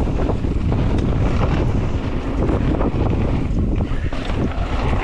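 Wind buffeting the microphone of a camera on a mountain bike at speed down a dirt flow trail, with a steady rumble and frequent knocks and rattles as the bike rolls over the trail.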